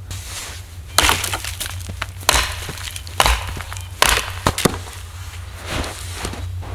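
Dry alder wood cracking and snapping: about five sharp cracks over a few seconds, with rustling of twigs in between.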